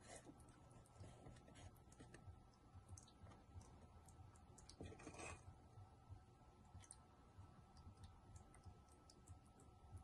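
Faint small clicks and soft scraping of a small spatula spreading and smoothing frosting on a miniature layer cake, with one short, louder scrape about five seconds in.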